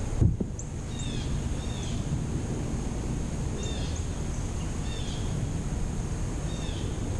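A small bird calling repeatedly with short, high, falling chirps in twos and threes, over a steady low rumble of wind and water noise, with a dull thump just after the start.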